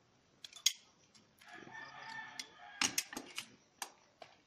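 A rooster crows once, a single held call of about a second and a half starting a little over a second in. Around it come several sharp clicks and knocks, the loudest near the start and just after the crow, as the climber handles his harness hardware on the pole.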